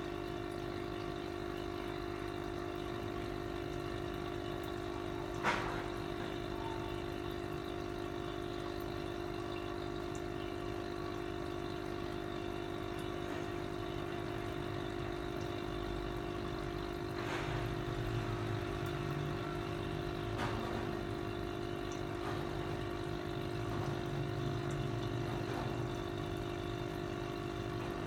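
Aquarium air pump humming steadily, with air bubbling through the water of a goldfish bowl. A single sharp click about five and a half seconds in.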